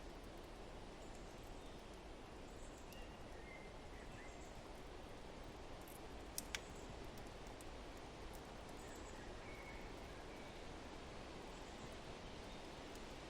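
Faint fireplace and forest ambience: a steady rush of wind with a few soft bird chirps scattered through it. Two sharp crackling pops from the log fire come just before the middle.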